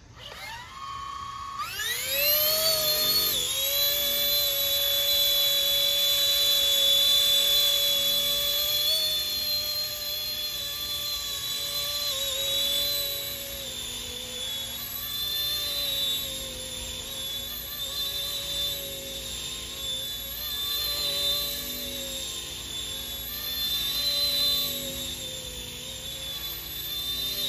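RC ERA C190 Airbus H145 scale RC helicopter's electric motor and rotor spooling up with a rising whine about two seconds in, then running as a steady high whine that wavers up and down with throttle changes.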